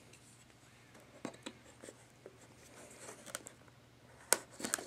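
Faint scratching and small clicks of a blade cutting the tape seal on a small cardboard box, with a sharper click near the end.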